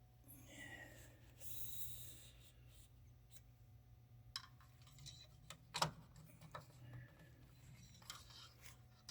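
Faint handling noises while topping up snowblower engine oil: a short hiss about two seconds in, then scattered clicks and knocks, the sharpest about six seconds in, over a low steady hum.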